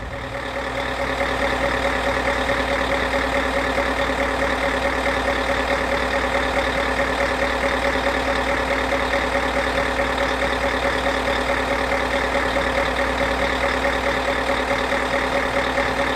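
Steady engine drone with a fixed pitch, fading in over the first second or so and fading out near the end.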